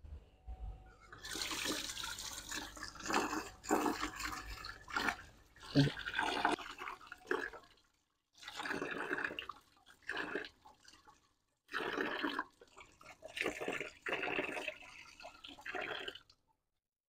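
Water poured and splashing over a nickel-plated aluminium motorcycle footstep hanging over a rinse basin, in irregular bursts with short breaks: the plain-water rinse after nickel plating, before the chrome bath.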